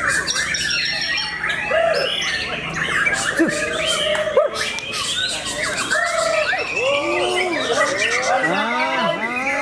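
Many caged white-rumped shamas singing at once in a dense, overlapping chorus of whistles, chirps and rapid rattling trills, as in a songbird contest round.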